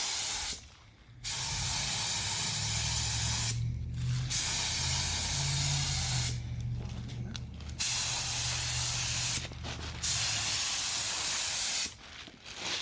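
Paint being sprayed onto a replacement car fender in five separate passes, each a hiss of one to two seconds with short breaks between.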